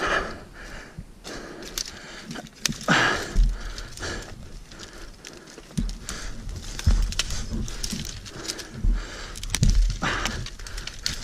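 Heavy breathing close to the microphone, with footsteps and small clicks on dry forest ground. A low uneven rumble runs underneath from about halfway through.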